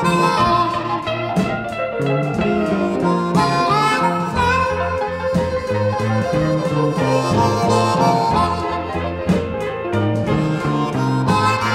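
Instrumental passage of a late-1950s Chicago electric blues recording: harmonica lead over electric guitar and a stepping bass line, with no vocals. The harmonica holds one long note through the middle of the passage.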